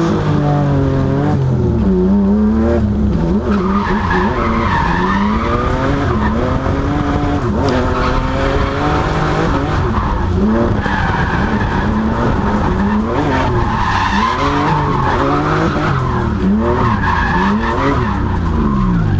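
BMW E36 drift car heard from inside the cabin while drifting: the engine's pitch rises and falls again and again as the throttle is worked, with tyres squealing through the slide.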